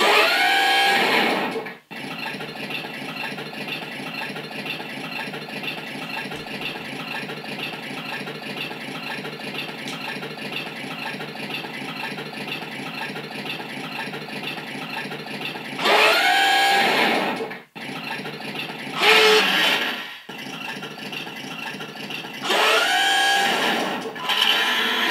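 Recorded engine sound effects from a Mattel Ultimate Batmobile app-controlled RC toy. A steady idle sound runs throughout, broken by about five short revs that rise in pitch and cut off suddenly: one at the start and the rest in the last third.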